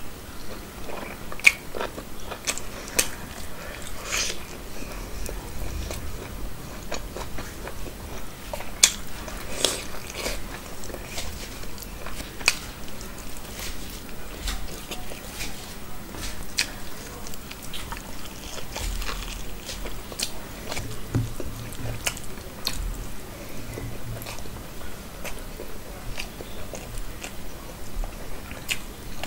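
Mouth sounds of someone eating rice and meat curry by hand: chewing with wet smacks and short sharp clicks at an irregular pace, a few of them louder.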